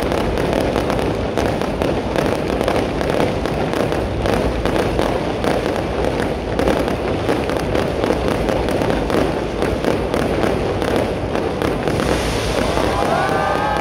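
Fireworks display: a dense, continuous barrage of bangs and crackling from aerial shells going off in rapid succession. Near the end, a few whistles glide up and down over the crackle.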